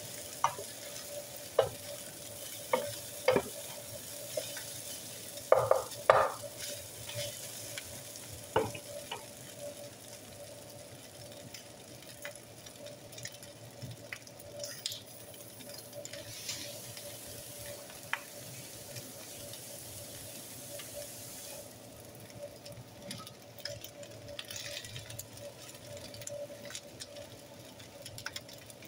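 Chicken fried rice sizzling in a skillet, with a wooden spatula scraping and knocking against the pan over the first several seconds as the rice is stirred. The sizzle thins out about two-thirds of the way through. A faint steady hum runs underneath.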